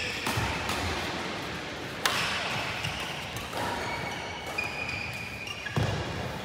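Badminton racket striking a shuttlecock: two sharp smacks, about four seconds apart.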